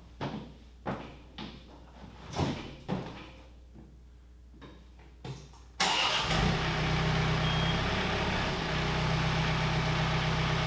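A few scattered knocks and clicks, then about six seconds in a motor starts abruptly and runs steadily with a low hum.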